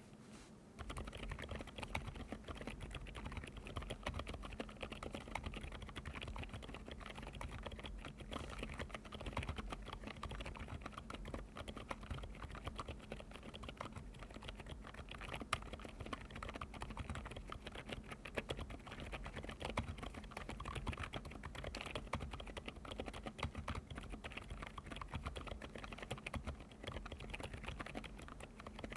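Continuous typing on an Epomaker RT100 mechanical keyboard fitted with lubed Outemu Cream Yellow silent tactile switches: fast, quiet, muted keystrokes, soft like stepping on fresh snow. The typing starts about a second in.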